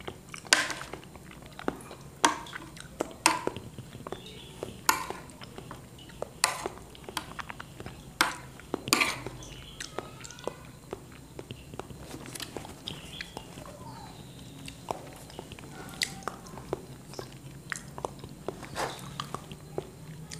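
Close-up eating sounds of soft chocolate agar pudding with vanilla custard: wet lip smacks and chewing at irregular intervals, densest in the first half, with the occasional tap or scrape of a metal spoon on the plate.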